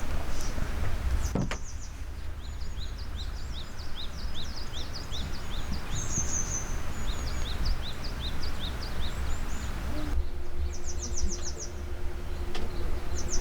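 Small wild birds chirping repeatedly in short, quick notes, with a few fast trills, over a steady low outdoor rumble and hiss.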